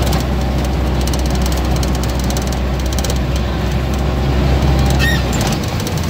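Steady engine and road rumble heard from inside a moving vehicle's cabin, deep and constant. About five seconds in a brief high-pitched squeak sounds, and the deepest part of the rumble drops off just after.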